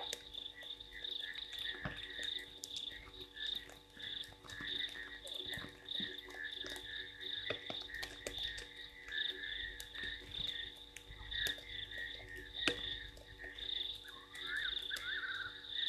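Chorus of frogs calling: many overlapping pulsing calls in two high bands, with scattered sharp ticks throughout.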